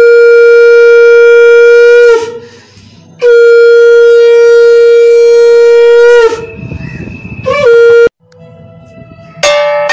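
Conch shell (shankha) blown in three blasts: a held note of about two seconds, a longer one of about three seconds, and a short one about eight seconds in, each on one steady pitch that sags slightly as it ends. Music with plucked notes starts just before the end.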